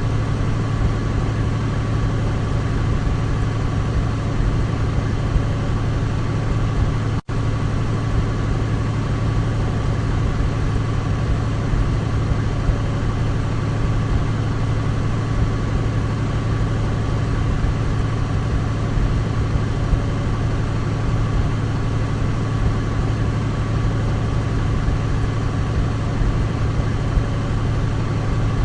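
Douglas DC-3's radial piston engines running at a steady, unchanging drone. The sound cuts out for an instant about seven seconds in.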